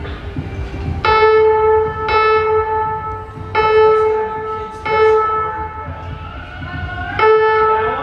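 Train horn sounding five blasts, the first about a second in and the last near the end, each a steady single pitch, over a low rumble.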